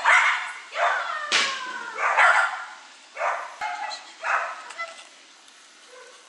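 Dog barking repeatedly, about six sharp barks roughly a second apart, then falling quiet for the last second or so.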